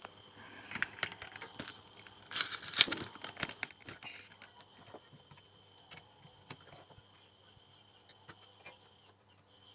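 Metallic clicks and clinks of a TV flyback transformer and chassis parts being handled on a workbench, loudest in a rattling cluster about two and a half seconds in, then sparser taps. A faint steady high tone sits underneath.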